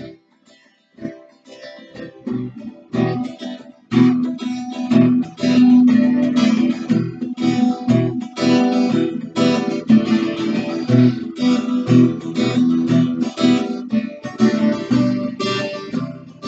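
Solo cutaway acoustic guitar in an instrumental break: it starts softly with a few notes, then strummed chords come in louder from about four seconds in.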